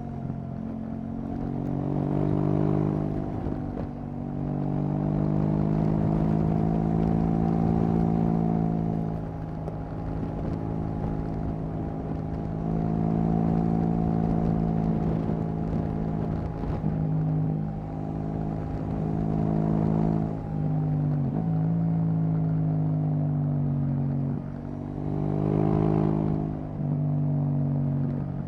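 2018 KTM 790 Duke's 799 cc parallel-twin engine running through an Akrapovic exhaust while riding, held at fairly steady revs, with the pitch and loudness dipping briefly several times and climbing back.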